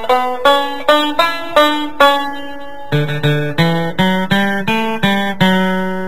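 Background music: a plucked acoustic string instrument picking out a melody of single notes, about two or three a second, ending on a long held note.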